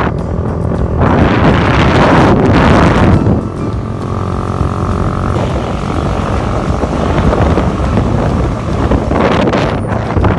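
A vehicle engine running steadily, with wind buffeting the microphone in two strong gusts: one from about a second in to about three seconds, and one shortly before the end.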